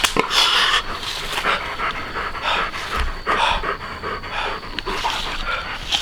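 An animal breathing hard in quick, noisy panting breaths, roughly one or two a second.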